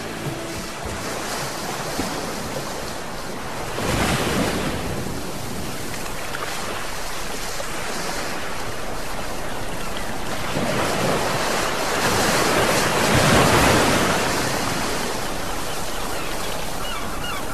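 Sea waves washing onto a shore, a steady rushing that swells about four seconds in and again, longer, from about eleven to fourteen seconds.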